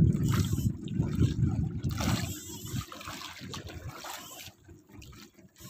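Sea water lapping and splashing against a small wooden outrigger boat, with wind buffeting the microphone; louder in the first half, then dying down.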